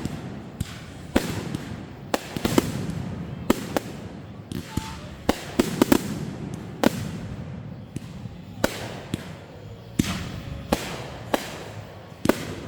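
Fireworks going off: about twenty sharp bangs at uneven intervals, some in quick pairs, with rumbling echoes between them.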